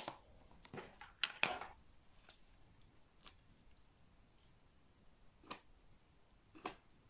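Light plastic clicks and taps as the snap-on lid of a small clear plastic enclosure is pulled off and laid on a table, a quick cluster in the first two seconds, then a few single faint clicks spaced out over the rest.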